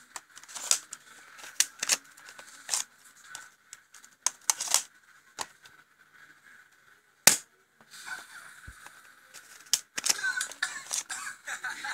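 Suppressed airsoft pistol being handled and fired close to the microphone: a run of irregular clicks and knocks, the sharpest a single snap about seven seconds in.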